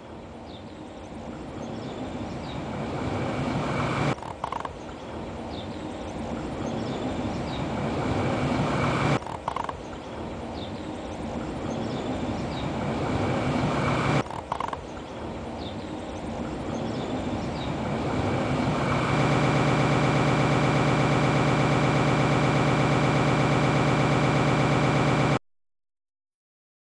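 A train approaching along the track, its rumble growing steadily louder, then passing close by, loud and pulsing fast and evenly, until the sound cuts off abruptly near the end.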